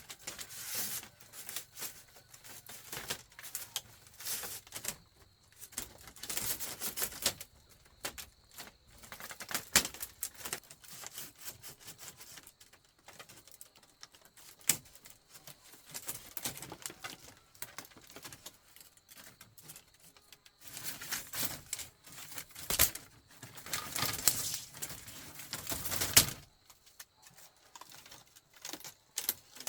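Irregular light clicking, tapping and rustling from hand work, with a few louder knocks, the loudest near the end.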